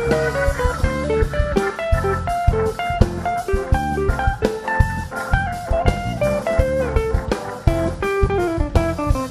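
Live band playing an instrumental: a guitar picks a quick single-note melody over bass and drum kit.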